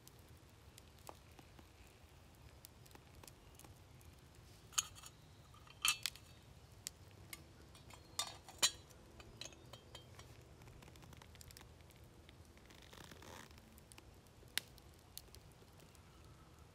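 Scattered sharp clinks and taps of a black metal kettle and cup being handled at a campfire while tea is poured. The clinks cluster between about five and nine seconds in, with a couple more later.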